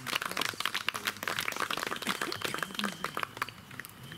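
A small group applauding by hand after a recited poem, the clapping dying away about three and a half seconds in, with a few voices among it.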